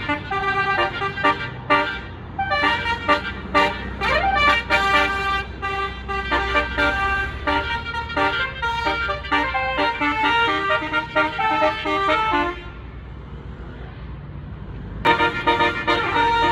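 A bus's basuri musical horn plays a pop-song melody note by note, over the low running of the bus engine. The tune breaks off for about two seconds near the end, then starts again.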